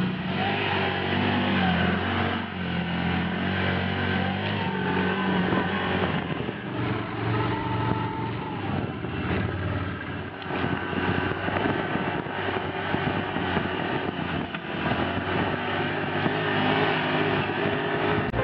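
Off-road vehicle engine running and revving up and down, heard from on board the moving vehicle, with rough road noise mixed in.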